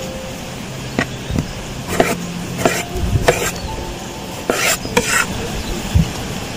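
Chef's knife cutting ripe tomatoes into wedges on a wooden cutting board: a series of short knocks of the blade on the board mixed with brief slicing scrapes, about nine in all.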